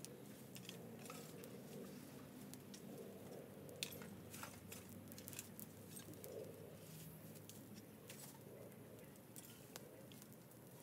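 Faint, irregular crackles and snaps from a small fire of dry branches and leaves being stirred with a stick, with one sharper pop about four seconds in.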